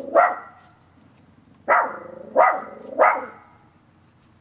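Small Pekingese–Chihuahua mix dog barking: one bark at the start, then after a pause of about a second and a half, three more barks in quick succession.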